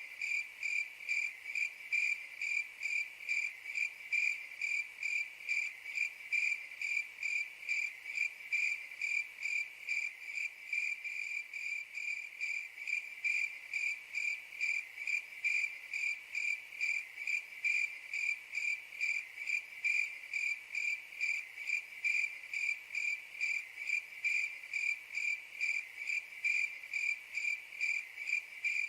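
Cricket chirping in a steady, even rhythm of a few high-pitched chirps a second.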